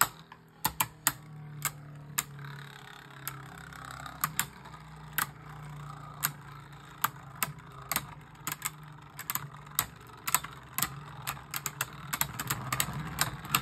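Two Beyblade Burst spinning tops whirling and clashing in a stadium: a steady low hum broken by sharp, irregular clicking hits, about two or three a second.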